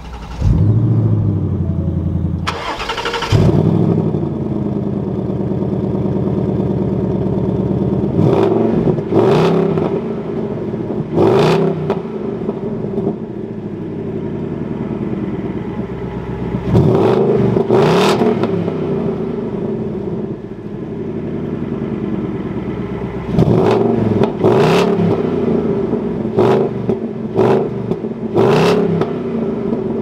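A 2021 Ford Mustang GT's 5.0-litre Coyote V8 is started with the push button and flares loudly just after catching, then settles to a steady idle. It is then revved in a series of short, sharp throttle blips, about nine of them, several in quick pairs, each dropping back to idle.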